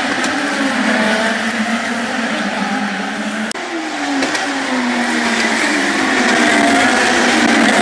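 Open-wheel race cars passing at speed on a street circuit, their engines falling in pitch as each one goes by, over the steady drone of other cars on the track.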